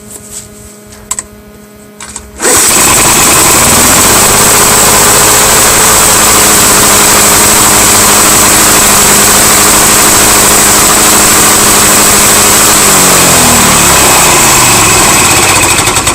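A 1986 Lawn Boy 5126 mower's two-stroke engine is pull-started cold. It catches about two seconds in and runs loud and steady at an even speed. About thirteen seconds in it is shut off, its pitch falling as it spins down to a stop.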